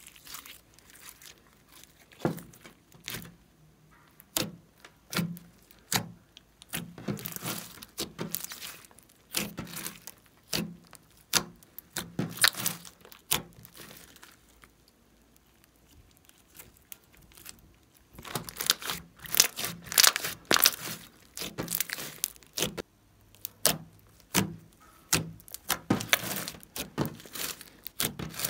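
Hands squeezing, stretching and folding glossy slime, giving irregular runs of sticky clicks and pops, with a quieter pause in the middle.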